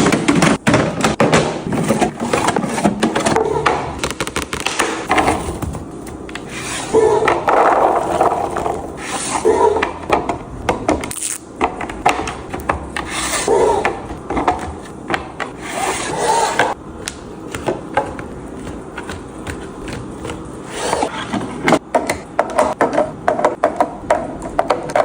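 Items and packaging being handled and arranged while restocking a fridge: continual rubbing and scraping with many light knocks and taps as things are set down.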